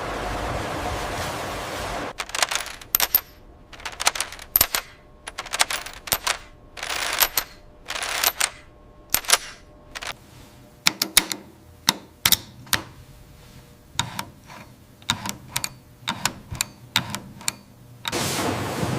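Machinery clattering: a run of irregular sharp clicks and knocks mixed with a few short hissing bursts, between stretches of steady running noise at the start and near the end.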